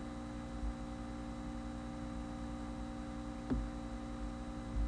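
Steady electrical hum in the recording, several steady tones with a low drone beneath. A single sharp click comes about three and a half seconds in.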